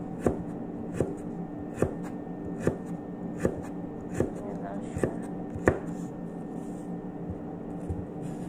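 Kitchen knife chopping green bell pepper on a cutting board, a sharp knock on the board about every three quarters of a second, thinning out after about six seconds, over a steady low hum.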